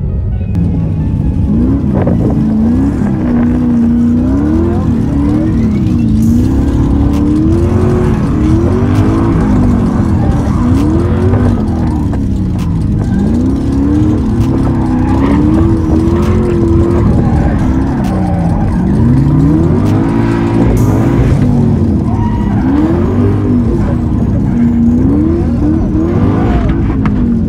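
V8 engine of an LS-swapped Miata NB drifting, revving up and down over and over as the throttle is worked, with tyre noise underneath.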